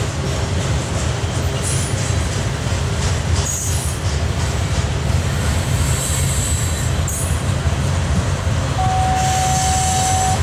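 Norfolk Southern freight cars rolling past with a steady low rumble and wheel noise, faint high screeches coming and going. About nine seconds in a single steady wheel squeal sets in.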